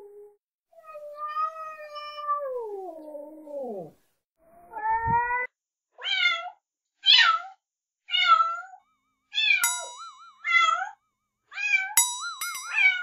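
Cats meowing: one long meow that falls in pitch, then a run of short, high meows about one a second. Near the end, bell-like dings and a wobbling tone sound over the meows.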